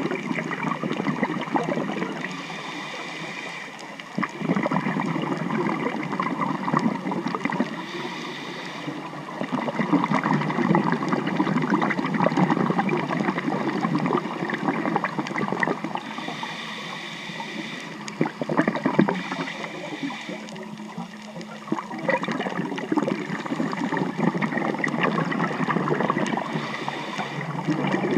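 Underwater gurgling and crackling of scuba bubbles, swelling and fading in surges every few seconds, with brief higher hisses now and then.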